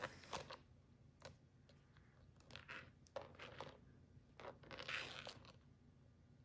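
Faint scattered rustles and light clicks from a Louis Vuitton Félicie Pochette in monogram canvas and its removable gold-tone metal chain strap being handled, busiest about five seconds in.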